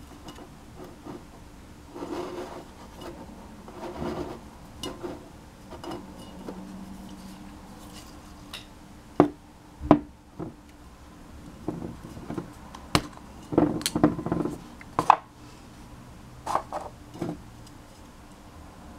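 Handling noises from a butane lighter refill can and a lighter on a table: scattered knocks, clicks and rubbing as they are picked up, turned and set down, with two sharp clicks about nine and ten seconds in and a cluster of knocks a few seconds later.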